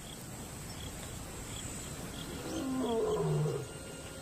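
Male lion roaring: a resident pride male's territorial roar. One call rises out of the background a little after two seconds in and lasts about a second and a half.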